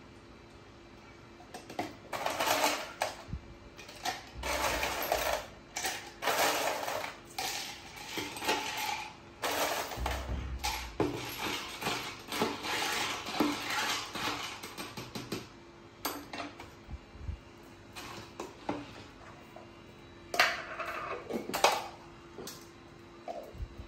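A spoon stirring iced lemon tea in a plastic cup, with ice clinking and rattling against the sides. The rattle starts about two seconds in and stops about two-thirds of the way through. After that come only a few scattered clinks and a short louder clatter near the end.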